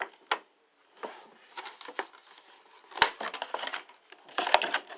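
Plastic action-figure packaging being handled: irregular crackles and sharp clicks of the tray and wrapping, loudest about three seconds in and again near the end.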